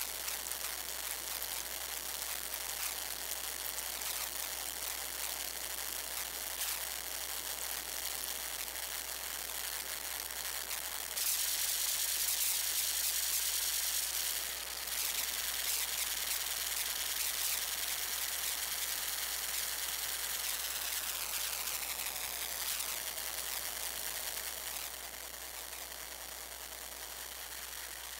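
Modular synthesizer putting out a static-like hiss with scattered clicks over a steady low hum. The hiss turns brighter and louder for a few seconds near the middle, and later a falling sweep slides down in pitch.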